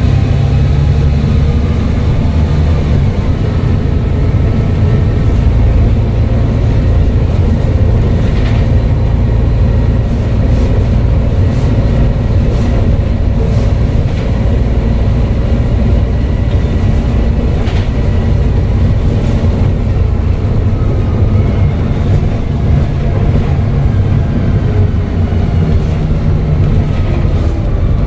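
Volvo B7TL double-decker bus's turbocharged diesel engine running steadily under way, with a faint turbo whistle that glides in pitch at times. A few sharp knocks or rattles sound through it.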